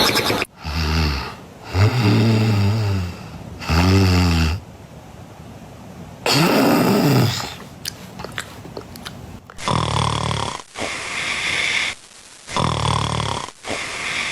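Recorded human snoring: a run of loud, pitched snores, each about a second long with short gaps. After a quieter stretch, from about ten seconds in, a different recording of noisier, rougher snores follows.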